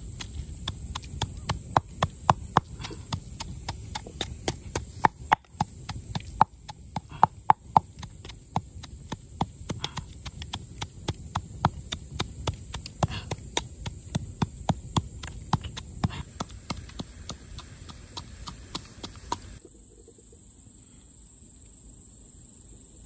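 Pestle pounding chilies and salt in a clay mortar: a steady rhythm of about two to three dull knocks a second, which stops near the end.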